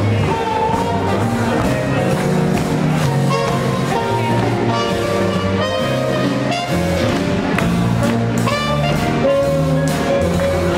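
Big-band swing jazz: trumpets and trombone playing over a walking upright bass, piano and drums.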